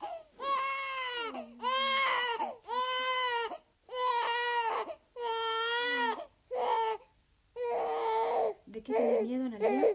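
A young baby crying, a string of about eight wails of about a second each with short pauses for breath between them.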